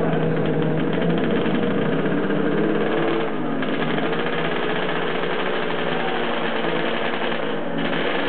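Drag-racing snowmobile engine running steadily at idle, its pitch dipping and wavering about three seconds in.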